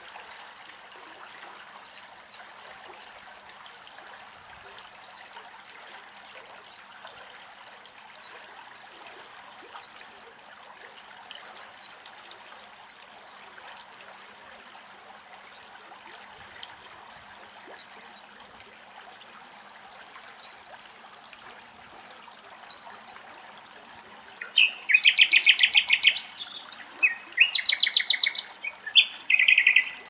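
Western yellow wagtail giving short, high, thin calls every second or two. Near the end a common nightingale sings a burst of rapid, repeated notes.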